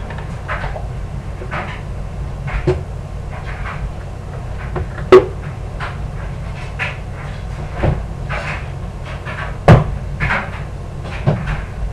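Kitchen clatter out of sight: scattered knocks, bumps and brief scrapes, with two sharp knocks about five and ten seconds in, over a steady low background hum.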